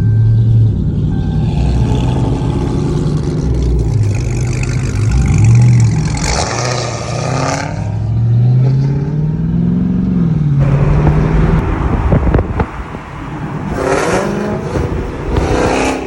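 Dodge Charger V8 engines running in a group and revving: the low exhaust pitch rises and falls as they accelerate, with louder bursts about six seconds in and again near the end.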